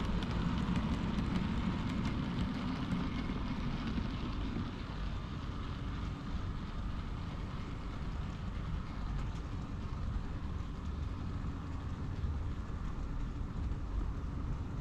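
Model railway locomotive running along the layout's track, a steady mechanical sound of motor and wheels on rail.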